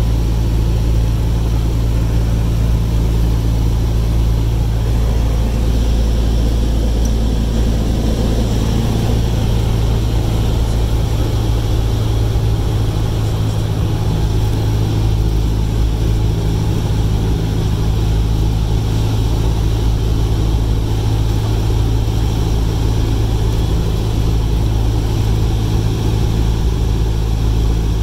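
Cessna 172 Skyhawk's piston engine and propeller droning steadily in flight, heard inside the cabin, with an unchanging low pitch.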